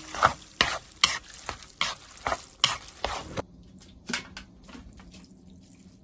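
Konjac noodles in sauce being tossed and stirred in a bowl with chopsticks: a wet stirring sound with sharp clicks about twice a second. About three and a half seconds in this gives way to fainter, scattered clicks and taps.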